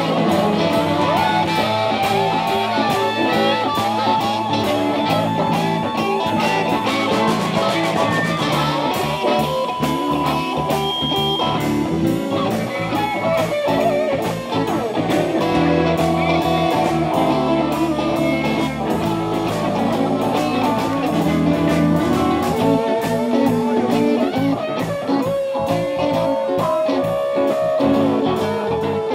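Live blues band playing: electric guitars, electric bass and a Premier drum kit in a steady blues groove.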